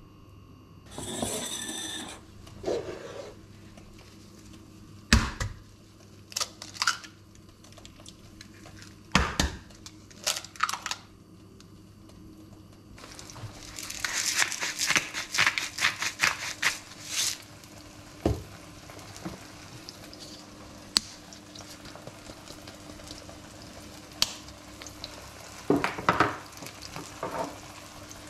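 Kitchen handling over a faint sizzle from a pan of oil: tomato slices set into the frying pan near the start, two sharp knocks as eggs are cracked on a steel bowl, and a hand-twisted spice grinder clicking rapidly for a few seconds about halfway through. A spice shaker is shaken near the end.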